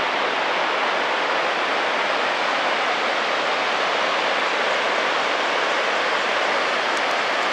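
Victoria Falls: water falling into the gorge, a steady rushing hiss that holds even throughout.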